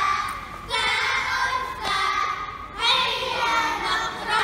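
A group of young children singing an Arabic song together in unison, in held phrases of about a second each.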